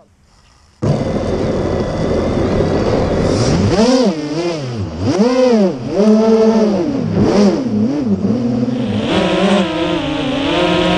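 A 6-inch FPV racing quadcopter's brushless motors (Brother Hobby R3 2207 2550kv) whining through their propellers, heard from the onboard camera. The sound cuts in suddenly about a second in. Its pitch swoops up and down several times as the throttle is punched and cut, then holds higher near the end.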